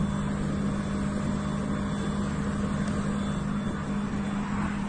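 Mobile crane's diesel engine running steadily under load while it hoists an overturned truck tractor, a constant even hum.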